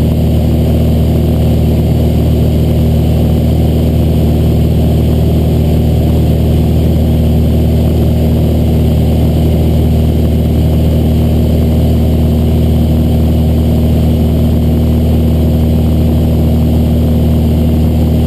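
Steady drone of a Cessna 182's engine and propeller in flight, with a rush of air.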